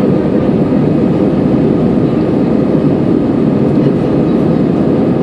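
Steady cabin noise of a jet airliner in flight, heard from a window seat: an even, low rumble of engines and airflow with a faint steady hum.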